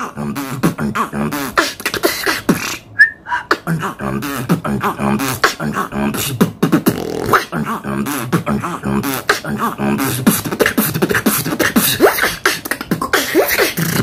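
Solo human beatboxing: rapid, rhythmic percussive mouth sounds layered over a hummed, pitched vocal line, with a short pause about three seconds in.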